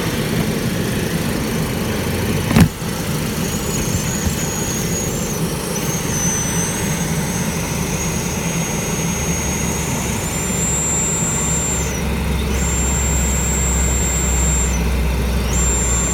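Mercedes W140/C140 heater airflow rushing with a single click, then a thin high-pitched whistle from the air duct flap that steps in pitch and drops out twice before returning. The whistle comes from the duct flap, not the heater blower motor.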